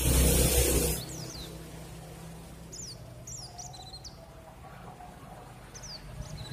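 Birds chirping in short, quick, falling notes over a steady low hum. A loud rush of noise fills the first second.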